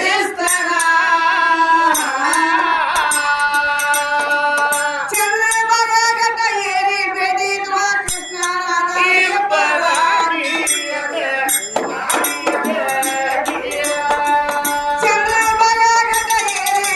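A woman singing a folk song, accompanied by a frame drum and small hand cymbals struck in a repeating rhythm, with a one-string tuntune.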